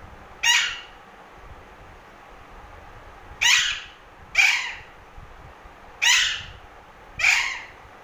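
Young Alexandrine parakeet giving five short, harsh squawks, each dropping in pitch at the end, the first about half a second in and the other four in the second half.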